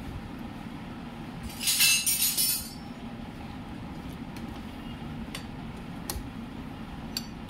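Metal clinking during engine reassembly: a loud jingling rattle for about a second, then a few single light clicks, over a steady low hum.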